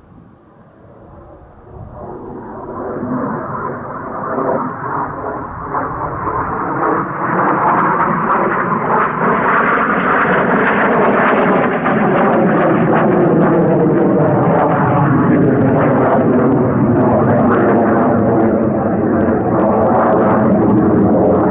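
Aermacchi MB-339 jet trainer's Rolls-Royce Viper turbojet passing overhead. Its roar builds from faint to loud over about eight seconds, then holds loud while its pitch slowly falls.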